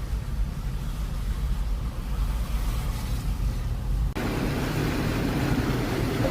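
A car driving, its low engine and road rumble running steadily; about four seconds in the sound switches abruptly to a louder, broader rushing noise.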